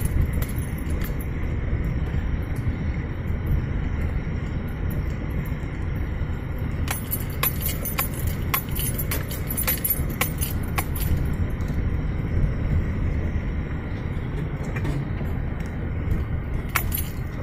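Interior noise of a vehicle driving slowly up a rough dirt road: a steady low rumble of engine and tyres, with light rattles and clinks from the cabin as it bounces, most frequent from about seven to eleven seconds in.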